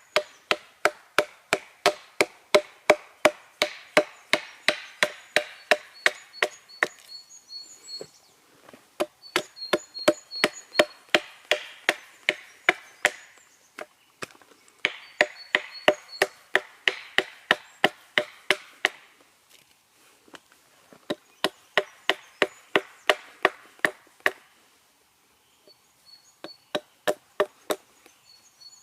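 Hatchet chopping a small piece of wild cherry wood in quick, even strokes, about three a second, in runs of several seconds broken by short pauses. Birds chirp faintly in the background.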